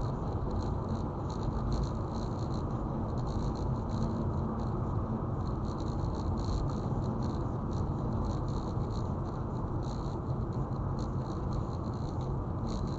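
Steady road and engine noise of a car being driven, with a light, irregular patter of small ticks over it.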